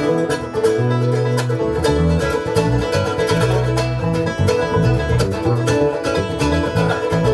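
Live bluegrass band playing an instrumental passage with no singing: banjo, mandolin and guitar picking over bass notes that change every half second or so.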